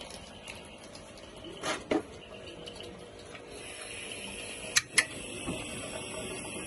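Portable gas camping stove: two knocks as the gas canister is fitted, about two seconds in, then two sharp clicks of the piezo igniter near five seconds and a steady hiss of gas burning at the burner.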